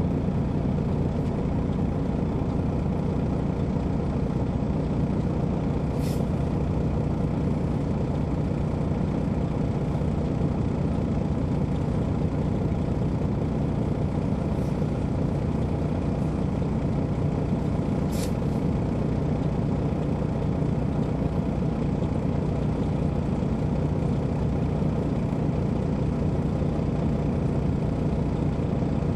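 Detroit Diesel Series 60 straight-six diesel of an MCI D4500 coach running steadily, heard from inside the bus. Two short hisses from the bus's air system, about six seconds in and again about eighteen seconds in.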